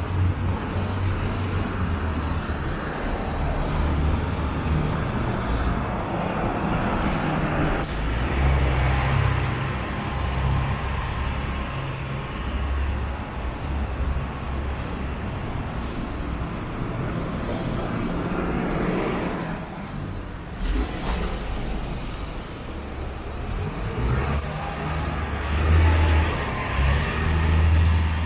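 City street traffic: cars and a city bus running along the avenue with a steady low engine rumble that swells a couple of times, and a few sharp clicks.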